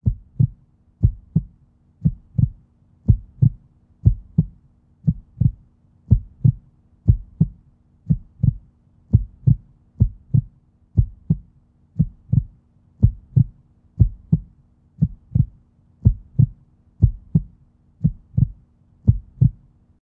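A heartbeat: steady paired low thumps, lub-dub, about once a second, with a faint steady hum beneath.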